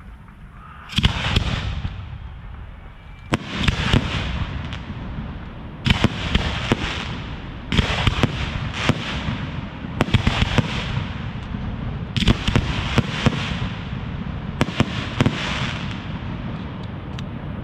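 Aerial firework shells bursting in a display, a sharp bang about every two seconds, each followed by a few seconds of crackling and low rumble.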